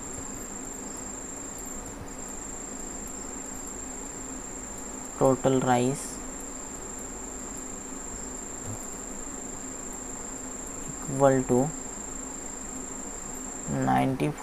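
A steady, thin, high-pitched whine, like an insect's drone, runs throughout and breaks off briefly about two seconds in. Three short, loud voice sounds rising in pitch come about five, eleven and fourteen seconds in.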